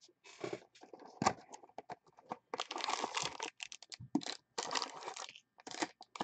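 A Panini Spectra football card box being opened and its foil-wrapped packs handled: irregular tearing, crinkling and rustling of cardboard and foil, with a sharp click about a second in.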